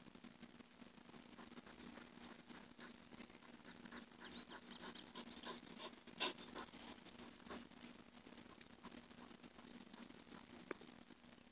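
Beagles barking and yipping faintly, amid scattered light clicks and rustling.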